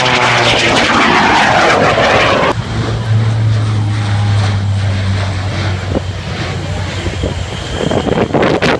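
A red aerobatic biplane's propeller engine passing low overhead, its pitch falling as it goes by. About two and a half seconds in, it cuts suddenly to a C-130 Hercules four-engine turboprop flying past with a steady low propeller drone.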